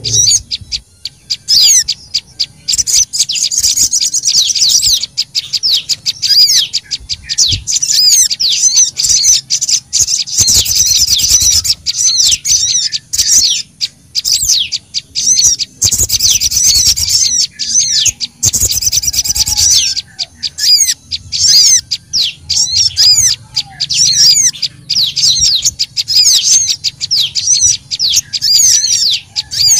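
Bird-lure recording of sogon and prenjak lumut (prinia) calls mixed together: a dense, busy chatter of rapid high chirps and trills that overlap almost without pause.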